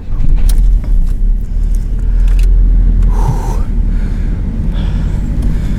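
A car engine starting and then running at a steady idle with a deep rumble.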